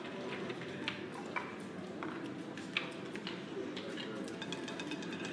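Casino chips clicking as they are set down and pushed across a roulette table's betting layout, scattered sharp clacks over a steady low murmur of room chatter.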